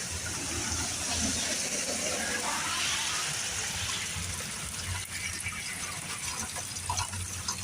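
Steady rain falling hard, a constant rushing wash of water.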